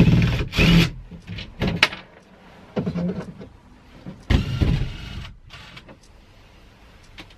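Cordless drill-driver running in two short bursts with a motor whine, backing screws out of a roof vent's plastic trim frame. Scattered clicks and knocks follow, with a louder clatter about four seconds in.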